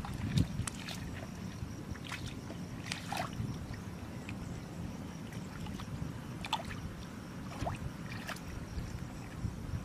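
Muddy shallow water sloshing and splashing as a person wades and feels through the mud with her hands, with scattered small splashes and drips over a steady low rumble.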